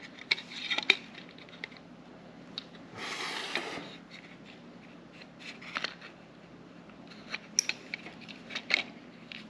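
Plastic housing of an EV charger handle being handled and fitted together: scattered light clicks and taps, with a brief scraping rustle about three seconds in.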